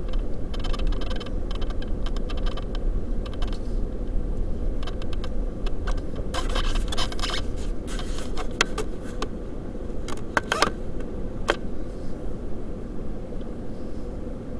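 Vehicle rolling slowly over a dirt lot in strong wind, heard from inside the cab: a steady low rumble and faint hum, with bursts of crackles and sharp clicks, the last two single clicks a little before the end.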